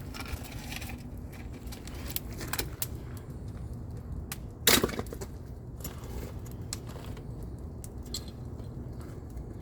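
Firewood being split with a knife: scattered knocks and splintering wood, with one loud sharp strike about halfway through.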